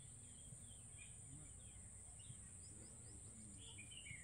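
Near silence: faint outdoor ambience with a steady high hiss and a few faint bird chirps, slightly more of them near the end.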